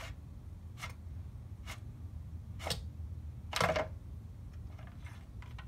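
Faint handling sounds from checking the oil on a Honda walk-behind mower: four or five short clicks and rustles, the loudest about three and a half seconds in, as the dipstick is pulled and handled. A low steady hum runs underneath.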